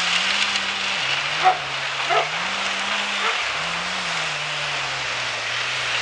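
Crane-fed wood chipper running while chipping brush, a steady grinding noise over an engine note that dips and recovers several times as branches are fed into it. Two short sharp sounds, half a second apart, stand out about a second and a half in.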